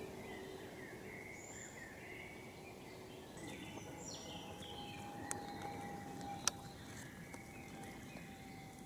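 Woodland ambience: birds calling on and off over a steady low rumble, with a faint steady hum entering about halfway through and a couple of sharp clicks.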